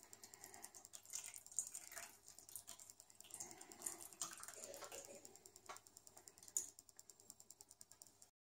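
Near silence with faint, scattered light clicks and taps as thick batter is poured from a metal mixing bowl into a baking tin.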